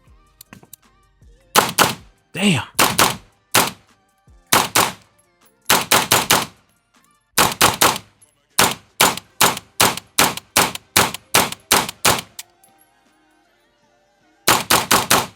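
Maxim Defense MD9 9mm pistol-caliber carbine fired semi-automatically in quick strings: groups of two to four shots, then a long run at about three shots a second, and a last fast string of four near the end.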